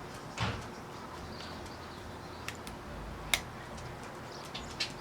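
A few small, sharp clicks and taps of hands handling a phone's thin back-glass panel and its small camera lens cover, the loudest about three seconds in, over a steady low background.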